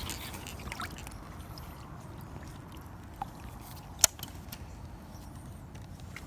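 Faint water sloshing and lapping around a float tube. A single sharp click comes about four seconds in.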